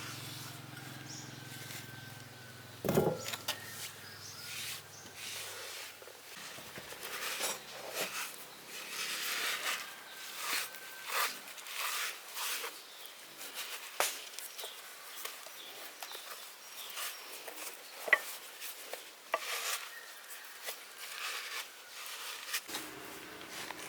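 Irregular clicks, taps and scraping of hand tools and metal parts being handled during machine repair work, with one sharper knock about three seconds in. A low hum fades out in the first few seconds.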